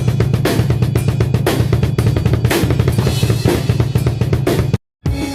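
Drum kit played fast and loud, with rapid bass drum strokes under snare and cymbal hits. It cuts off abruptly just before the end.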